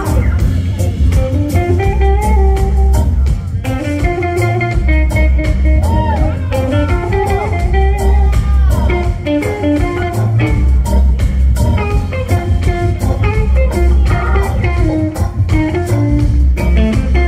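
Live band playing: an electric guitar melody with bent notes over drums and a heavy, pulsing bass line.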